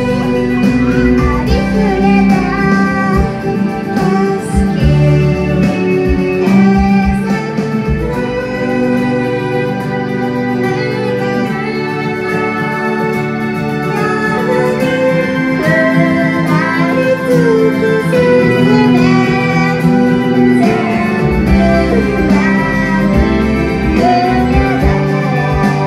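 A woman singing a song live into a microphone, with acoustic guitar accompaniment.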